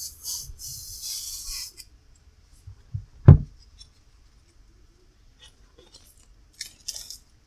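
Protective plastic film being peeled and crinkled off a new alarm clock, with a single loud thump about three seconds in and more short rustles near the end.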